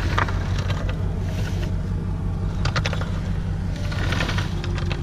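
A boat's motor running with a steady low drone, with a few short clicking rattles over it.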